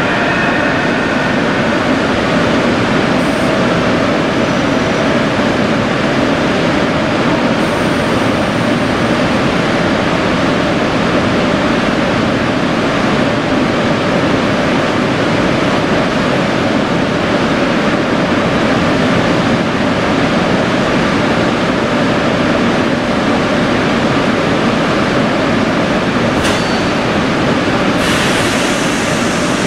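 Double-deck TGV high-speed trainset creeping along the platform as it pulls up to another TGV set, a loud, steady rushing noise from the train with no breaks.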